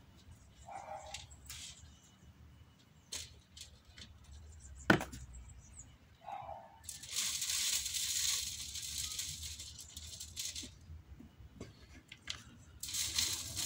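Manure compost being shaken through a hand sieve: a few scattered clicks and knocks, then a dry hiss of falling grit and small stones about seven seconds in that lasts some four seconds, and again near the end.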